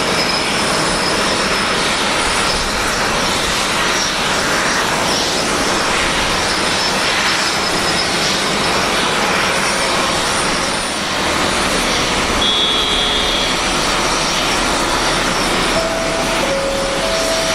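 Boeing 767-300 airliner's jet engines running, a loud, steady rush with a faint high whine.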